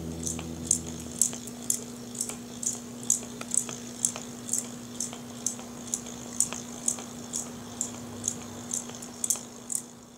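Weasel ball toy running: its motor gives a steady hum, with a sharp click about twice a second as the ball turns.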